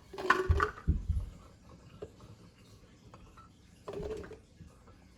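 A few short knocks and clatter of items being handled in a kitchen about a second in, then another brief burst about four seconds in.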